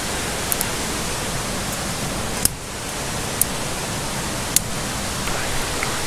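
Steady rush of a mountain stream, with four or five sharp snaps of dry twigs being broken to feed a small campfire.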